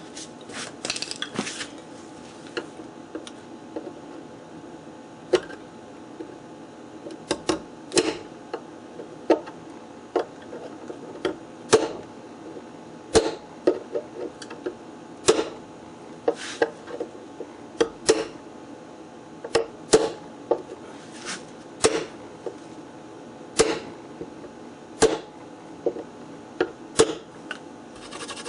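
Hammer tapping a punch, a long series of sharp taps about one every second or so, some in quick pairs, bending the split-rivet tabs of a drawer handle flush into the wood of a wooden machinist's toolbox.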